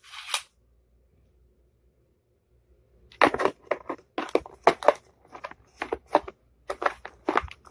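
A small yellow plastic tape measure handled over a plastic tool case: a short scraping burst at the start, then, after a quiet gap of a couple of seconds, a quick string of sharp clacks and rattles.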